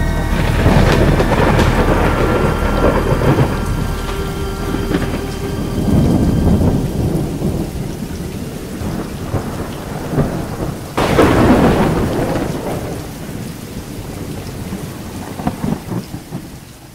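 Thunderstorm: rolling thunder over steady rain. A sudden, loud thunderclap about eleven seconds in rumbles away, and the sound fades out at the end.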